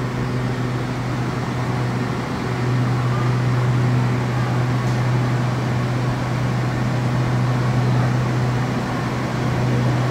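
Stationary Red Line electric commuter train standing with its doors open, its air-conditioning and onboard equipment giving a steady low hum over an even whir.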